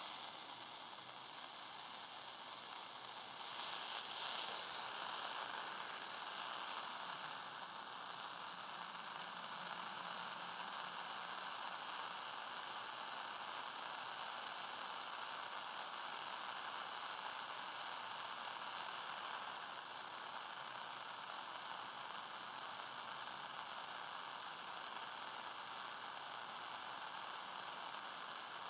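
Shortwave receiver tuned to 14263 kHz, putting out steady static hiss with no station audible. The hiss gets a little louder about three and a half seconds in, then holds steady.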